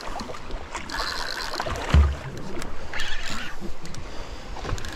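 Water sloshing against the hull of a small open boat, with scattered splashy hisses and one dull low thump about two seconds in.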